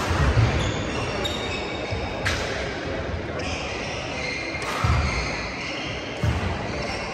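Badminton doubles play on a wooden sports-hall floor: court shoes squeaking in short high chirps, low thuds of footfalls and lunges about three times, and one sharp smack about two seconds in, echoing in the large hall.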